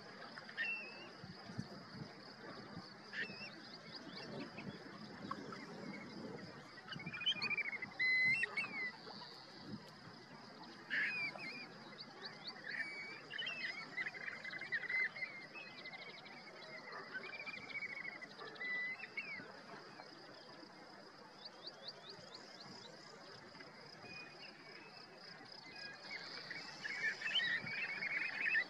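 Mixed flock of shorebirds calling: grey plovers, red knots, godwits and turnstones. Scattered short whistled calls and quick chattering series come and go, busiest near the end.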